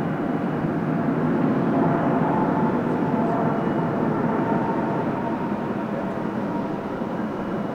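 Boeing 777F's GE90 jet engines at takeoff power: a steady, broad rumble with a faint whine on top, slowly fading.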